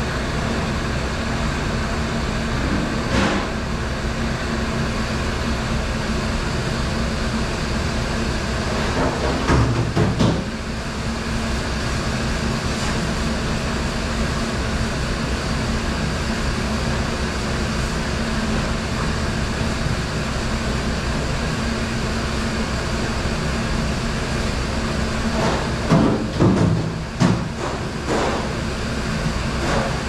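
Commercial conveyor dishwasher and dish-room machinery running with a steady hum and rushing noise. A few brief clattering knocks come through: a few seconds in, around ten seconds in, and several near the end.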